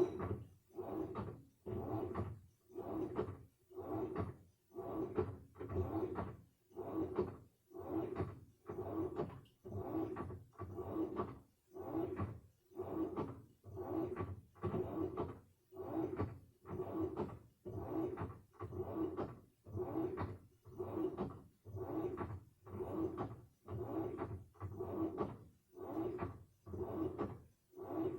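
Samsung washing machine running a wash cycle: the motor turns the load in short strokes, about one a second, with a brief pause between each, and each stroke carries a humming whine.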